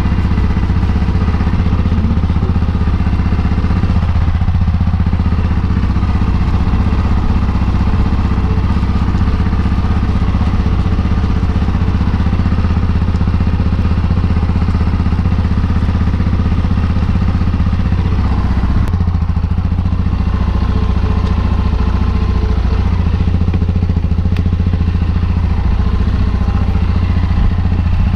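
Yamaha Ténéré motorcycle engine idling steadily, just after being jump-started from a flat battery with a portable jump starter.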